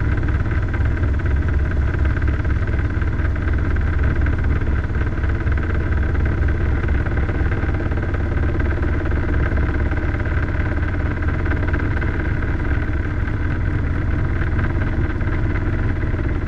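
Robinson R22 helicopter heard from inside the cockpit in flight on approach: steady engine and rotor noise with a fast, even low throb from the two-bladed main rotor.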